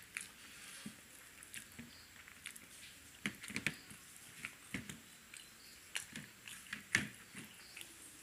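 A person eating with their mouth, heard as chewing with irregular wet smacks and clicks.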